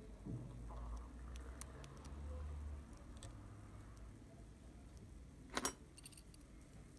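Small metal camera mechanism, the Contarex's removed shutter gear train, handled in the fingers: faint rubbing and light metallic clicks, with one short sharp click about five and a half seconds in.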